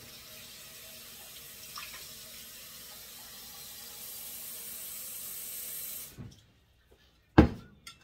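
Tap water running steadily into a cup for about six seconds, getting slightly louder as it fills, then shutting off. A single sharp knock about a second later.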